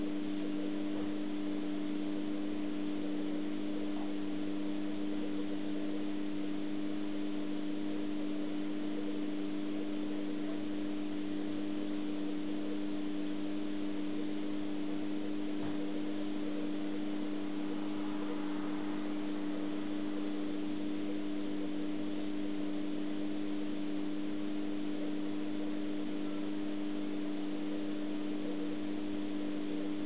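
Steady, unchanging electrical hum of an aquarium pump, a few fixed low tones over a faint even hiss.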